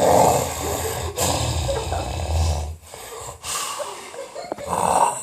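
A person snoring loudly. A long snore with a low rattle is followed, after a short pause, by a second snoring breath that peaks near the end.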